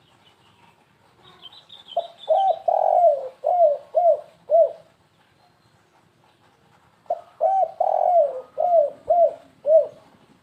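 Spotted dove (tekukur) cooing: two phrases a few seconds apart, each a run of about six short coos that rise and fall in pitch, in the stuttering 'kuk 3 gagap' style used as a lure call. Faint high chirping from a small bird comes just before the first phrase.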